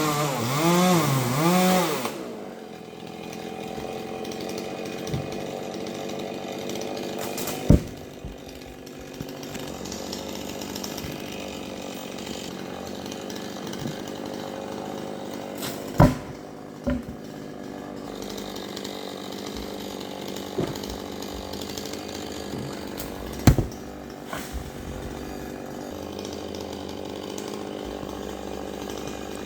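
Chainsaw revved hard with a wavering pitch for about two seconds, then running steadily and more quietly. Three sharp knocks stand out along the way.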